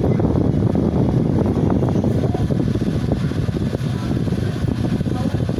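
Computer cooler fan running inside a homemade styrofoam egg incubator, heard as a steady low whooshing rumble of moving air.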